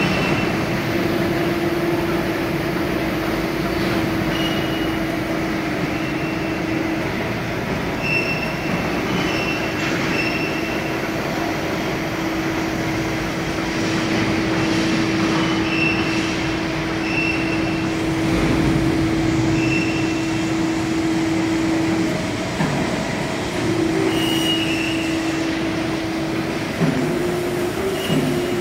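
Hydraulic power unit of a 400-ton CNC press brake running: a steady machine hum with a held mid-pitched tone over a noisy rush, and short high chirps at irregular intervals. The tone drops out briefly about two-thirds of the way in and again near the end.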